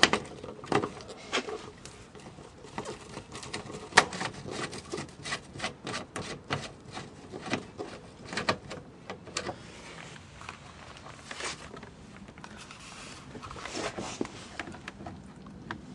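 Cloth wiping and handling noises on a car's plastic wheel-well trim: irregular clicks, taps and rubbing, with one sharper tap about four seconds in, as the area is cleaned before a splash guard's adhesive goes on.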